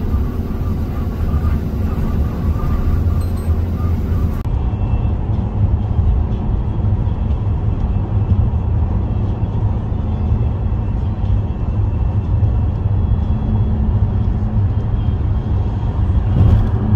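Steady low rumble of tyres and engine heard inside a car cabin while driving at highway speed.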